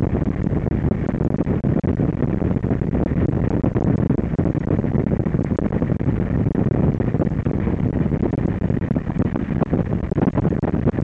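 Steady, low rush of air around the cockpit of an L-13 Blaník, an engineless two-seat glider, in flight, buffeting the microphone.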